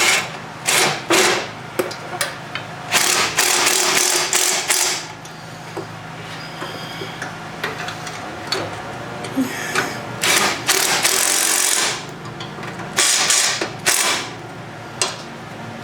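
Hand tools at work on the tractor: several runs of rapid clicking, typical of a socket ratchet driving nuts, with scattered metal clinks between.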